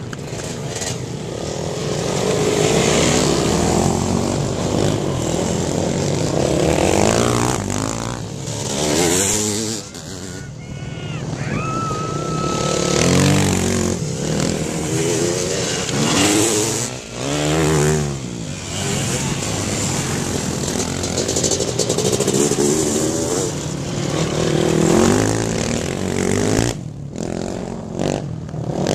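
A pack of off-road racing motorcycles revving hard through a dirt corner. Several engines overlap, and their pitch rises and falls again and again as bikes accelerate and pass one after another.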